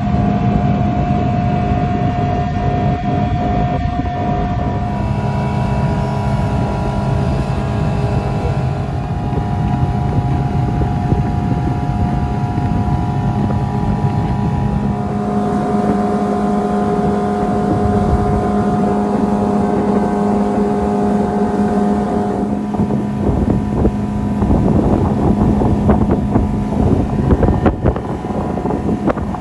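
Outboard motor of a boat running steadily at speed on the water, its engine note shifting a few times, with wind rushing over the microphone.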